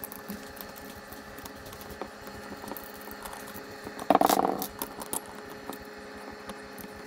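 Light clicks and clinks of metal parts handled on a tabletop, with one louder rattling clatter about four seconds in as the Bafang M600 mid-drive motor is shifted and picked up.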